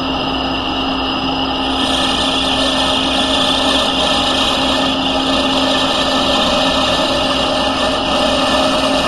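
Smithy lathe running under power, its motor and drive giving a steady hum, while a turning tool takes a light cut along a small workpiece to reduce its diameter. A higher hiss joins about two seconds in.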